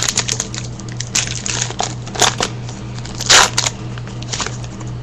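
A trading-card pack wrapper being torn open and crinkled by hand: a run of irregular crackles and rustles, the loudest a little past the middle.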